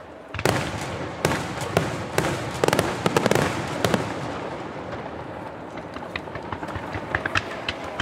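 Aerial fireworks shells bursting. There is a loud bang about half a second in, and a dense run of bangs and crackling around three seconds in. In the last seconds a string of separate sharp crackles follows.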